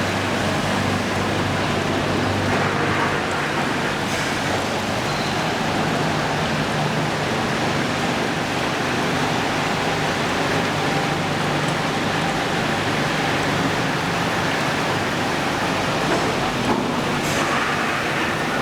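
5-gallon bottle outside-brushing washing machine running: a steady low mechanical hum under an even hiss like spraying water.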